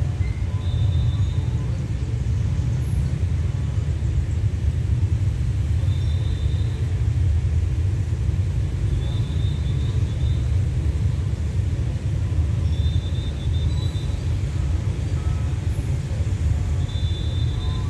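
A steady low rumble with short, faint high chirps every few seconds.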